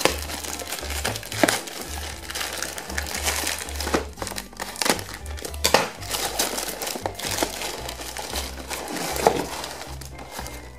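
Thin plastic mailer bag crinkling and rustling as it is torn open and pulled apart by hand, with sharp crackles throughout and background music underneath.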